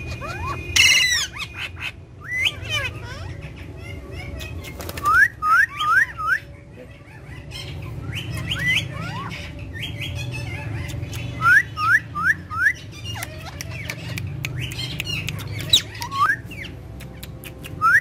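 Indian ringneck and Alexandrine parakeets calling: short sharp squawks in quick runs of three or four notes, several times over, with scattered clicks. A steady low rumble runs underneath.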